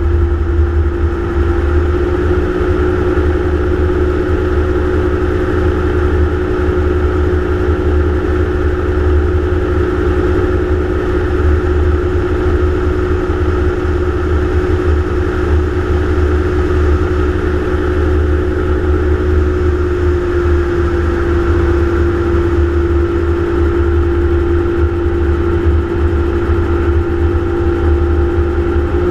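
Gyroplane's engine and pusher propeller running steadily in cruise flight, heard from a camera on board, a continuous drone with heavy wind rumble on the microphone.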